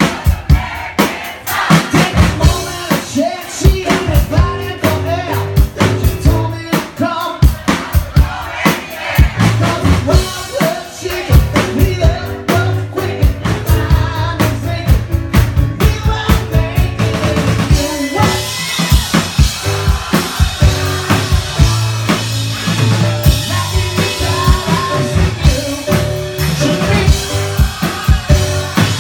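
Live music: a drum kit keeps a steady beat under piano and a man singing into a microphone. In the later part the cymbals wash more brightly over the top.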